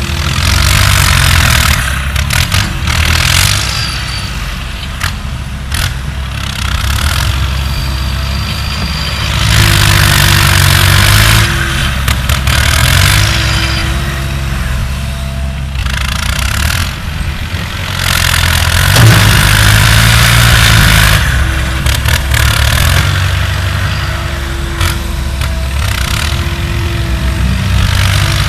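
Diesel engine of a working earthmoving machine running, surging louder and harsher under load several times, each surge lasting a few seconds.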